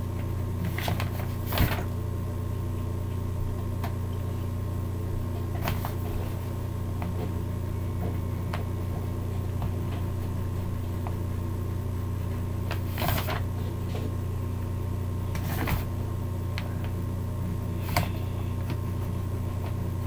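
A steady low hum with a handful of brief scratches and taps, about six spread over twenty seconds, from colouring in a drawing on paper.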